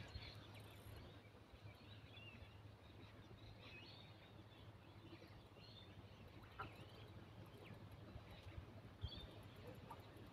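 Near silence: faint scattered bird chirps over a low steady hum, with a couple of faint clicks.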